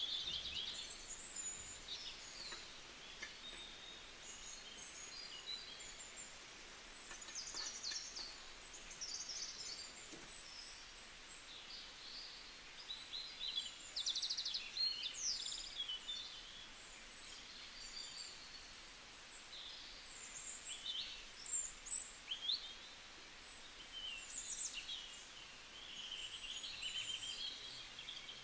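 Many birds chirping and calling, with short overlapping chirps and quick trills high in pitch over a faint steady hiss.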